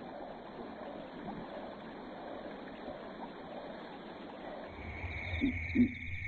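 Steady flowing water. About five seconds in it gives way to a steady high insect drone over a low hum, with three short, low animal calls near the end.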